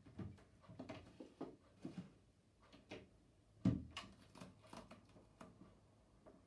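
Soft knocks, taps and rustles of someone moving about at a desk, with one louder thump about three and a half seconds in.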